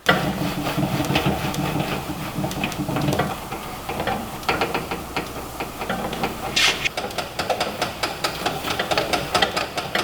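Clay bar rubbed back and forth over the painted steel of a toolbox: a continuous scrubbing made of quick, closely spaced strokes, with a short hiss about two-thirds of the way through.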